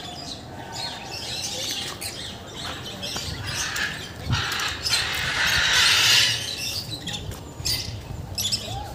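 Birds in an aviary chirping and squawking, with a louder stretch in the middle.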